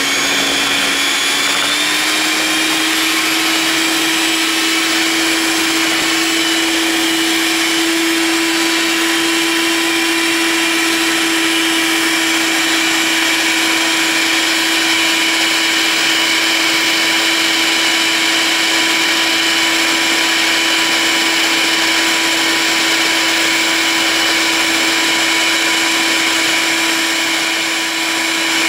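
Electric hand mixer running steadily, its twin beaters whisking chocolate pancake batter in a bowl: a constant motor whine that rises slightly in pitch about two seconds in, then holds.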